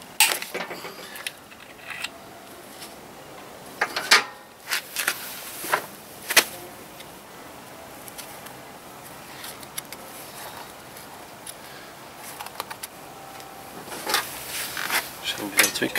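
Hand tools and metal parts clinking and knocking while a motorcycle part near the footpeg is being unbolted: scattered sharp clanks, a few near the start, several between about four and six and a half seconds in, then another run near the end.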